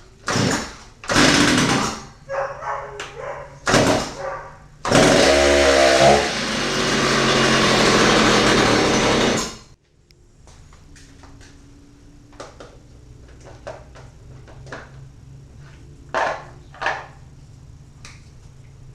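Stihl MS290 Farm Boss chainsaw, fitted with a replacement MS390 two-stroke engine, pulled over several times in short bursts. The engine then fires and runs for about five seconds, its pitch rising at first, before cutting off suddenly. Light clicks and knocks follow.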